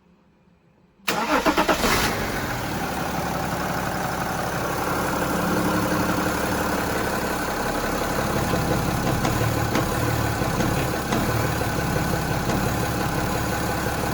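BMW X3 (E83) engine cranking and catching about a second in, with a brief pulsing surge, then settling into a steady idle. This is the cold restart at which the owner reports a momentary rev dip with a rattle or knock from the left side of the engine.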